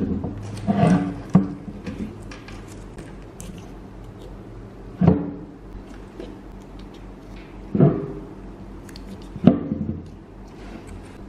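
Handling knocks from a small steel fan-motor stator core on a workbench as paper slot insulators are pushed into its slots and the core is turned over: five or six separate knocks and scrapes, with a low steady hum underneath.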